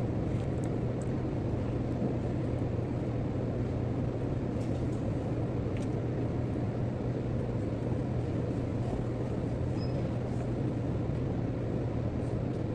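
Steady low hum over an even rumbling background, with a few faint light clicks.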